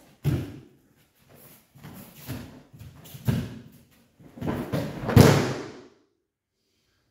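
Judo throw on tatami mats: bare feet thumping and stepping on the mats through a run of knocks, then the loudest impact about five seconds in as the thrown judoka lands on his back with a slapping breakfall.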